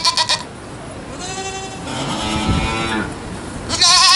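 Angora goat bleating three times: a short call at the start, a longer one in the middle, and a loud, quavering bleat near the end.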